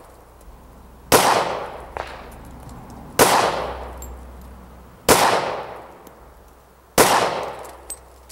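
Four pistol shots from a Smith & Wesson M&P .40, fired slowly about two seconds apart, each a sharp crack trailing off over about a second.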